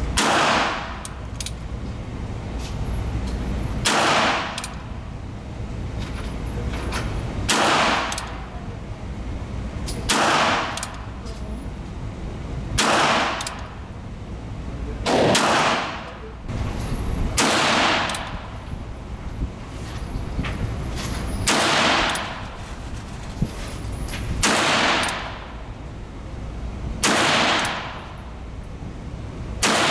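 Ruger Super Wrangler single-action revolver fired slowly, about eleven single shots spaced a few seconds apart, in .22 LR and then .22 Magnum (.22 WMR) near the end. Each shot echoes briefly off the range's concrete walls, over a steady low ventilation hum.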